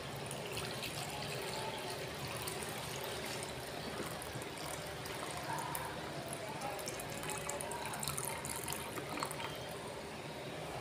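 Liquid trickling and splashing as the clear top water is poured off the settled sediment.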